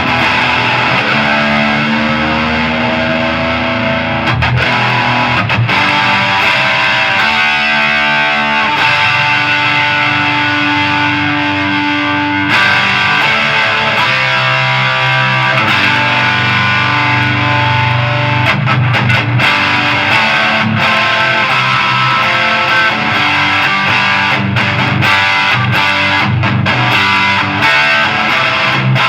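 Electric guitar played through a Snake Oil Fine Instruments Marvelous Engine, a Rat-style distortion pedal, riffing without pause in a distorted, high-gain tone.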